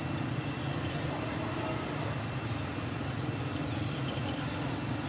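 Steady low rumble of background noise, even in level throughout, with faint steady high-pitched tones above it.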